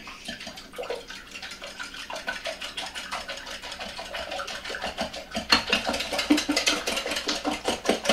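Wire whisk beating eggs and milk in a glass measuring cup: fast, even clicking and scraping of the wires against the glass with the liquid splashing, getting louder a little past halfway.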